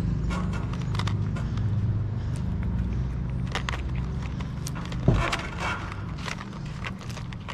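Cat eating from a plastic tub of wet food and dry kibble close by, a run of small crisp crunching clicks, over the steady low hum of an idling engine that fades after about four seconds; one louder thump about five seconds in.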